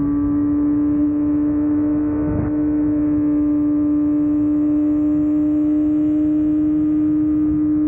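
Yamaha R6's inline-four engine running at a steady high rev, holding one constant pitch, with a rushing noise underneath and a brief scuff about two and a half seconds in.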